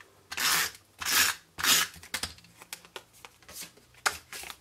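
Snail adhesive tape runner drawn three times in quick succession across the back of a cardstock panel, each stroke a short zip of tape laying down. After that come lighter paper rustles and a sharp click about four seconds in as the card is handled.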